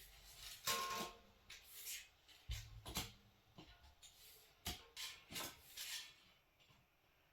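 Scattered light knocks and clicks with a dull thump about two and a half seconds in, from a Woodsman wood stove being handled and shifted into place.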